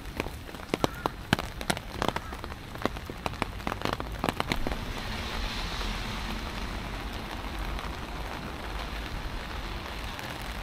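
Rain falling, with many sharp drips of large drops striking close by for the first few seconds, then a steady hiss of rain.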